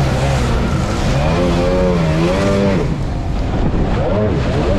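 Jet ski engine revving up and falling back again and again as the craft rides over waves, its pitch rising and dropping several times over a steady rushing noise.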